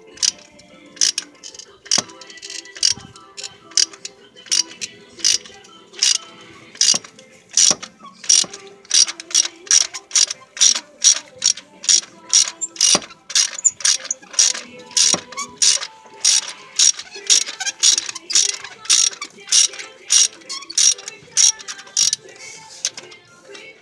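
Ratchet wrench on a long extension and spark plug socket clicking through repeated back-and-forth strokes as an old spark plug is worked loose. The strokes are sparse at first and come faster, about two or three a second, from around eight seconds in.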